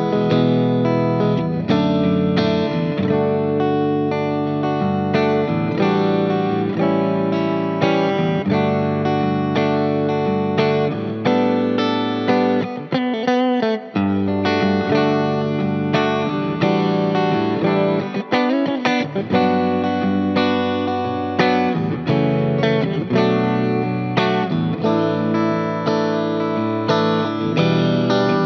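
Sterling CT30 SSS electric guitar playing a solo line over a backing track. Twice near the middle, the notes waver and bend in pitch.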